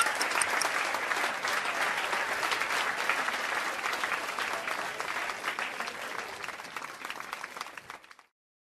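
Theatre audience applauding, dense clapping that slowly fades and cuts off abruptly about eight seconds in.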